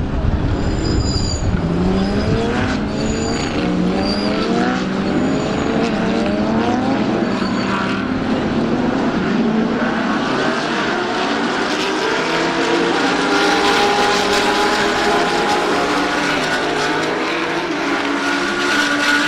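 GT3 race cars running on the circuit, engines revving up through the gears with pitch rising and dropping back at each upshift over the first half, then holding steadier at speed. Several cars are heard at once.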